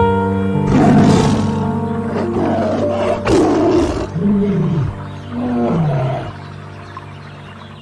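A large wild animal roaring: rough, loud calls about a second in and again past three seconds, then lower arching calls that fall away, over steady background music.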